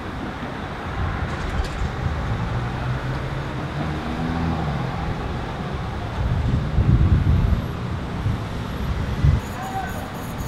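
Street traffic at an intersection: cars driving past in a steady rumble, with one passing louder about seven seconds in.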